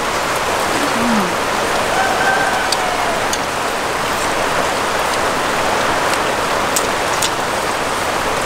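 Steady rain hiss with a few faint sharp ticks scattered through it.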